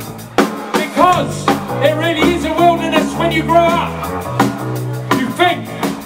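Live punk rock band playing: a male lead vocal sung over electric guitar, bass guitar and drums.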